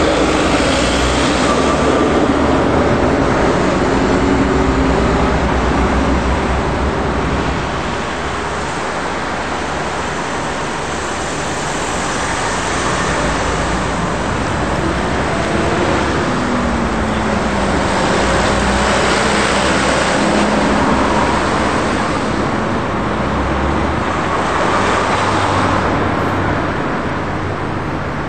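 Street traffic: motor vehicles driving past with engine and tyre noise. The sound is louder for the first several seconds, eases briefly, then swells again as more vehicles pass.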